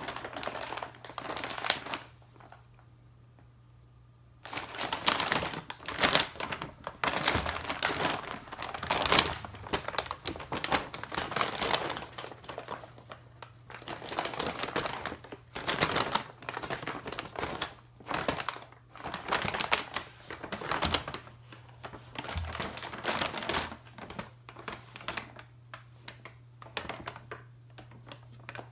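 Paper bag rustling and crinkling in irregular bursts as a cat moves about in it, with a pause of a couple of seconds near the start.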